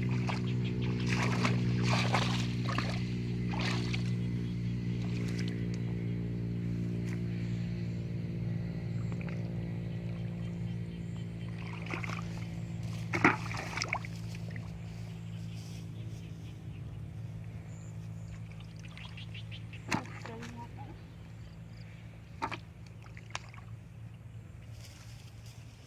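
Small boat engine running steadily and slowly fading away, with a few sharp knocks or splashes over it.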